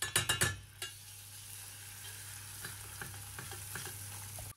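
Butter sizzling as it hits hot caramelized sugar in a stainless steel pot. A few sharp clicks of the metal spoon against the pot come in the first second, then a steady sizzle with light ticks of stirring.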